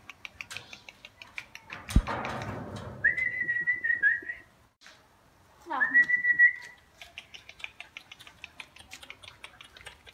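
Whistling: two steady high whistles, then one that slides up and holds, over a run of light ticking, with a sharp thump about two seconds in.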